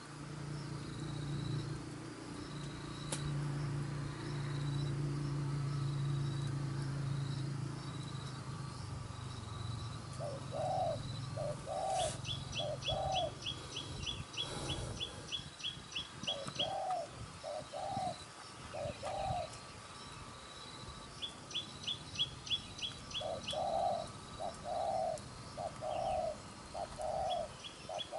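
Spotted doves cooing in repeated phrases of about three low notes, starting about ten seconds in. Short runs of rapid high chirps sound alongside, and a low steady hum fills the first several seconds.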